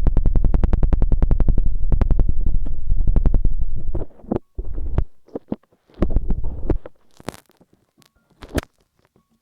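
Hands rapidly patting and rubbing the ears of an ASMR microphone, an even run of deep thumps at about ten a second. About four seconds in it stops and gives way to a few slower, separate strokes and brief brushing rustles with short silences between.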